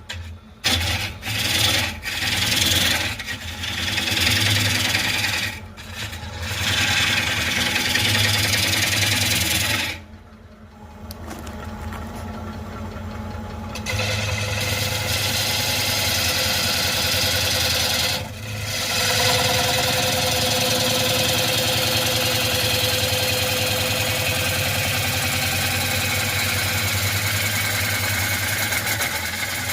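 Wood lathe running while a turning gouge cuts a spinning wooden bowl blank, a steady hiss of the cut over the motor's hum. The cut breaks off several times, with a longer pause about a third of the way in, then runs on steadily.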